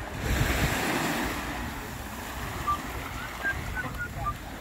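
Small waves washing up on a sandy beach and around rocks, the hiss of one wave swelling just after the start and fading over the next second. Wind rumbles on the microphone, and a few short high chirps come in the second half.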